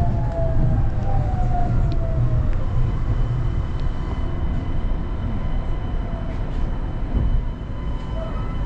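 A Kanazawa Seaside Line rubber-tyred automated guideway train running with a steady low rumble. Its motor whine falls in pitch over the first few seconds as the train slows, and a faint high steady tone comes in about three seconds in.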